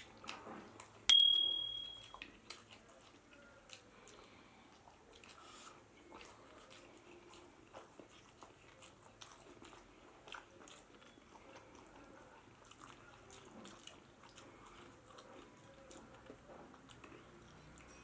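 Close-up chewing and eating sounds from someone eating pork biryani with rice: many small soft, wet clicks of chewing. About a second in, a single sharp ringing clink, the loudest sound, fades out over about a second.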